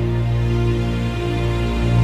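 Background music with sustained, held tones over a steady low note.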